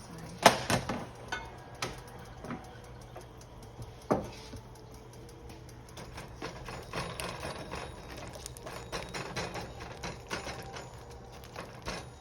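Kitchen handling sounds: a loud knock about half a second in, two more knocks, then a run of lighter clicks and taps.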